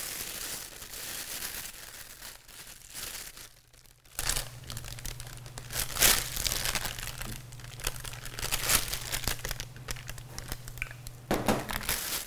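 A plastic disposable piping bag crinkling in irregular rustles as it is handled and filled with melted chocolate.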